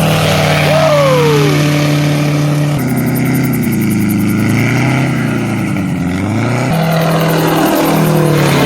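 A homemade gyrocopter's engine and pusher propeller running, with a steady pitch that sags and rises again between about three and seven seconds in. A short falling whistle sounds about a second in.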